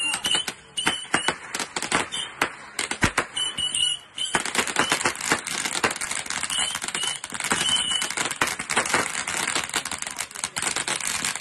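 A consumer fireworks cake firing on the ground: a quick string of sharp pops and cracks with short high whistles. From about four seconds in, the pops run into a continuous dense crackle.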